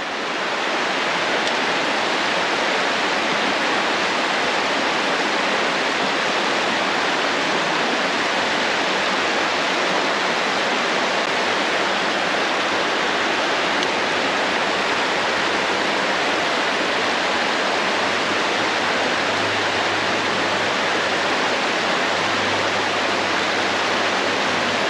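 Shallow creek water rushing steadily over a small rock ledge and through a riffle.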